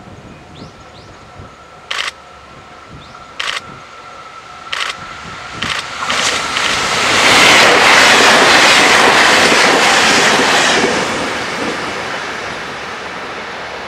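HOT7000-series diesel multiple unit approaching and passing close at speed: engine and wheel-on-rail noise swells into a loud rush, peaks for a few seconds, then fades as the train moves away. A few short sharp knocks come first, as it approaches.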